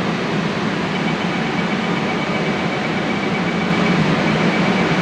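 Lucknow Metro train running between stations, heard from inside the coach: a steady rumble and rush, with a faint high whine joining about two seconds in.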